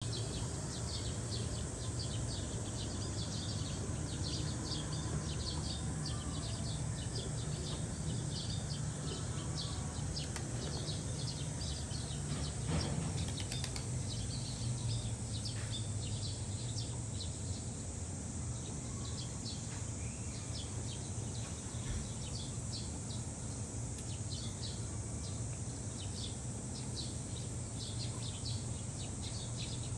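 Outdoor ambience: a steady high buzz with rapid, repeated high chirps over a steady low rumble.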